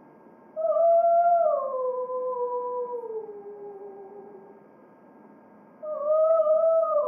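A wordless voice howling: a long note about half a second in that slides slowly down in pitch over several seconds, then a second, shorter howl near the end that holds and drops away.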